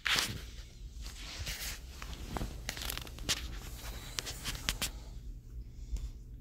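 Rustling and crinkling with scattered sharp clicks as things are handled off camera, dying down about five seconds in, over a low steady hum.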